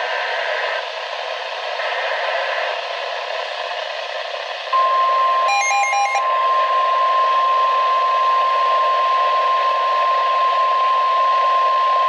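Hiss of a NOAA Weather Radio broadcast, then about five seconds in the steady 1050 Hz warning alarm tone comes on abruptly and holds, with a brief burst of rapid beeps shortly after it starts. The long single tone is the alert signal that announces a weather warning.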